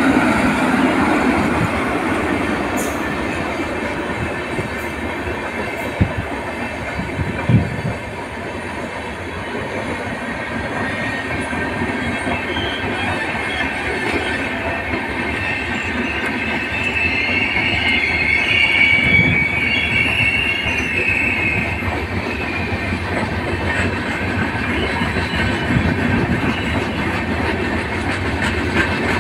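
Indian Railways express passenger coaches running past at speed: continuous wheel and track noise, with a couple of sharp knocks early on. A high wheel squeal rises for several seconds past the middle.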